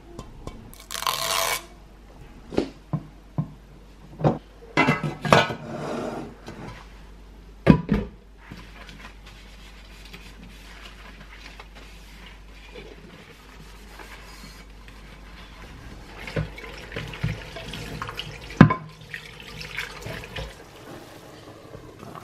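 Washing a pot and its glass lid at a stainless kitchen sink: tap water running in short spells, a sponge scrubbing, and the lid and pot knocking against the sink, with several sharp knocks.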